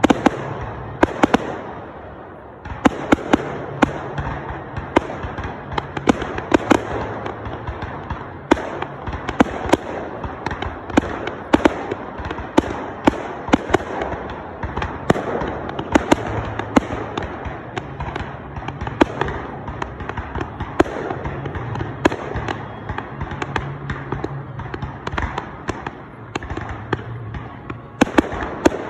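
Fireworks display: a rapid, irregular string of sharp bangs, about one to two a second, over continuous crackling, with a brief lull about two seconds in before the bangs resume.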